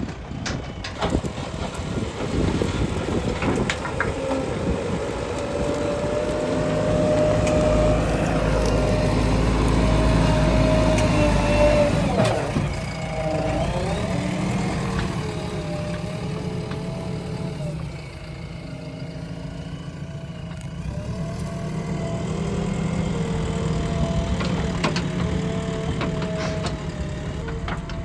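JCB backhoe loader's diesel engine running while working, louder and under more load from about six to twelve seconds in, with a few knocks near the start.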